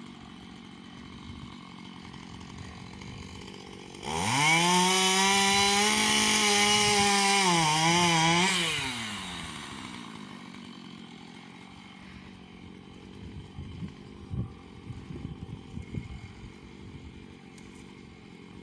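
Chainsaw revved up to full throttle for about five seconds, dipping briefly near the end as it bogs in the cut, then winding down to idle. Afterwards there are a few faint knocks and cracks.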